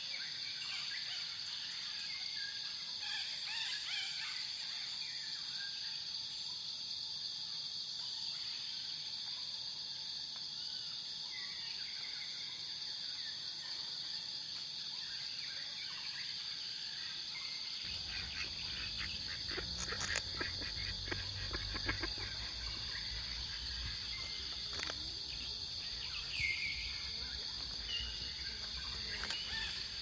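Outdoor nature ambience: a steady high chirring of insects with scattered short bird calls. About two-thirds of the way through, a low rumble comes in, with a quick run of light clicks soon after.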